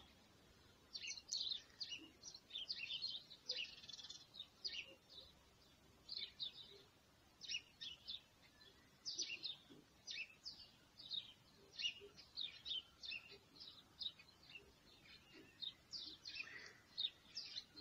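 Faint chirping of small birds: short, high chirps at irregular intervals, sometimes several in quick succession.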